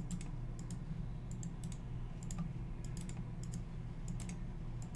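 Typing on a computer keyboard: short clicking keystrokes in small irregular clusters, over a steady low hum.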